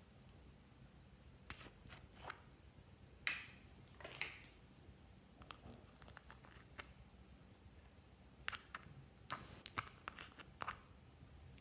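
Scattered short clicks and crackles of something being handled by hand, irregular and quiet, with the sharpest clicks about nine to eleven seconds in.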